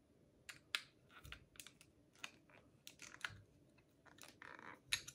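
A Stylecraft Rebel hair clipper being handled as its cover is worked off: faint, scattered small clicks and taps, with a short soft rustle near the end.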